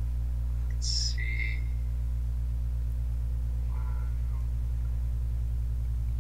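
Steady low electrical hum in the recording, with a brief faint high-pitched sound about a second in and a faint short blip around four seconds in.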